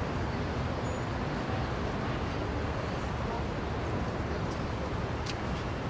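Steady city street ambience: a low, even rumble of road traffic, with a couple of faint sharp clicks a little past five seconds in.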